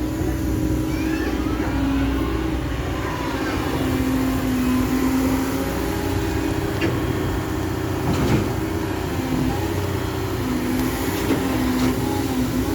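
Caterpillar M315F wheeled excavator working: its diesel engine and hydraulics run under changing load, the hum rising and falling in pitch, with a sharp knock about eight seconds in.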